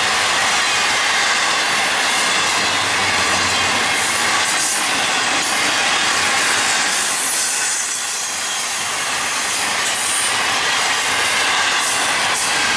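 Intermodal freight train cars rolling past at speed: a steady, loud rush of steel wheels on rail. A faint high wheel squeal comes in about halfway through.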